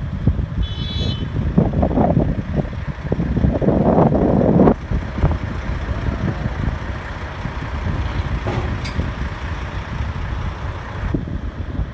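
Strong sandstorm wind buffeting the microphone in uneven gusts, with one heavier surge that cuts off suddenly about five seconds in. A short high tone sounds briefly about a second in.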